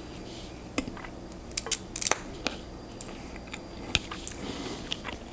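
Close-up mouth sounds of a person slurping in a long chow mein noodle and chewing: scattered wet clicks and smacks, the loudest cluster about two seconds in.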